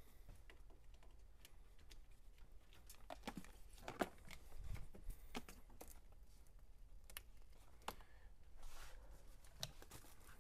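Faint, scattered clicks and light rustling as a power wheelchair's battery charger cord and plugs are handled and plugged in.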